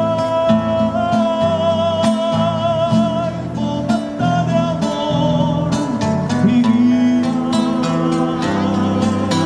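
Music without words: a strummed guitar under a long, held, slightly wavering melody line.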